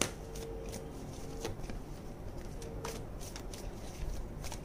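A deck of oracle cards being shuffled by hand: soft card rustles and scattered light clicks, with one sharper click right at the start.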